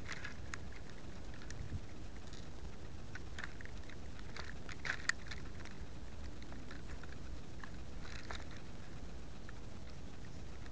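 Wind rushing over the microphone of a keychain camera riding under the wing of a flying RC glider, a steady low rumble. Scattered light clicks and crackles run through it, the loudest a pair about five seconds in.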